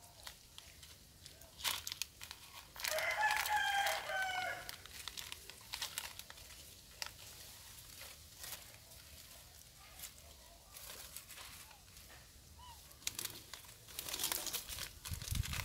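Foil instant-noodle packet crinkling in short bursts as a macaque handles it. About three seconds in, a loud animal call of several short pitched notes sounds over it.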